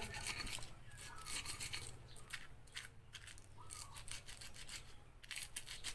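Stone pestle grinding and crushing red chilies against a stone mortar (cobek and ulekan): quiet, irregular gritty scraping and crackling strokes.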